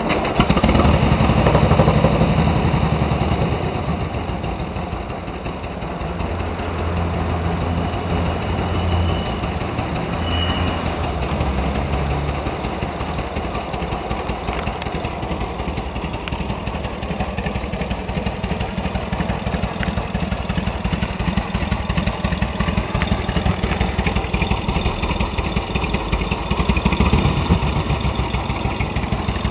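A 1948 Harley-Davidson flathead V-twin catches on the kick-starter right at the start and runs loud and fast for a couple of seconds. It then settles into a steady idle, with a few blips of the throttle around ten seconds in.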